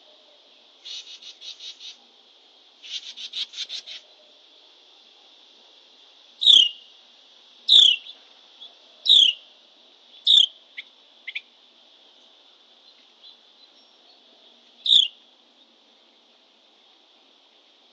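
Songbirds calling: two short rapid trills early, then a series of loud, sharp down-slurred whistled notes, each a second or so apart, with a long gap before the last. A steady high drone runs underneath.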